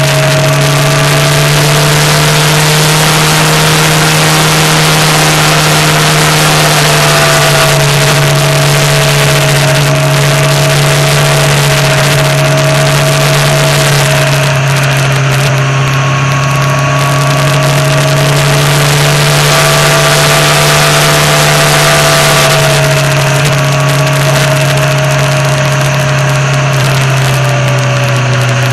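Motorcycle engine running steadily at cruising speed, its note wavering slightly with the throttle and easing a little near the end, under heavy wind and road noise on the microphone.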